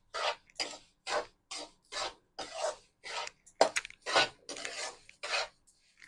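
Slotted metal spatula scraping and stirring ghee into roasted semolina in a metal kadhai, in rhythmic strokes about two a second. There are a few sharper clicks of the spatula against the pan about halfway through.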